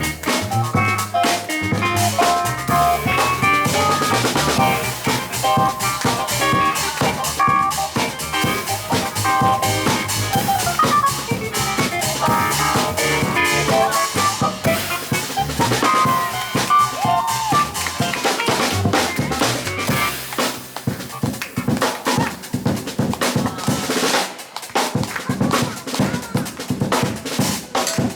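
Live jazz trio of piano, double bass and drum kit playing an instrumental passage. Piano lines lead for most of it, then from about two-thirds of the way through the drum kit takes over with busy strokes and few held notes.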